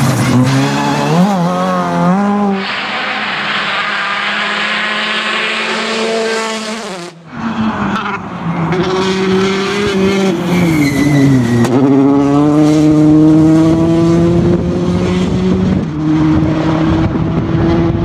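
Rally cars at full speed on a stage, turbocharged engines revving hard. The engine note climbs and drops with quick gear changes. It cuts off abruptly about seven seconds in, where another car takes over, and that car's note rises steadily through the gears.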